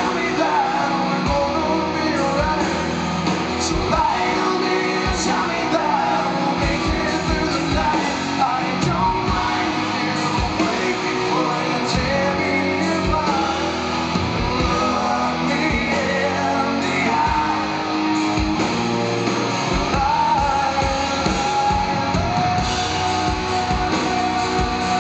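Live rock band in an instrumental passage: an electric guitar lead with bending notes over steady drums, ending on one long held note near the end.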